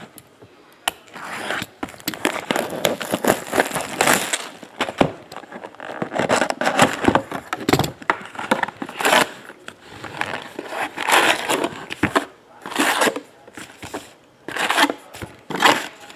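Handling of a Topps 2017 Allen & Ginter cardboard hobby box and its wrapped card packs: the box is opened and the packs pulled out and stacked, with irregular crinkling, rustling and scraping of packaging and light knocks.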